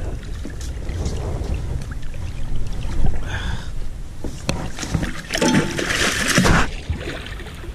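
Wind rumbling on the microphone, then a loud splash of water lasting about a second and a half, a little over five seconds in, as a gaffed paddlefish is hauled out of the river over the boat's side.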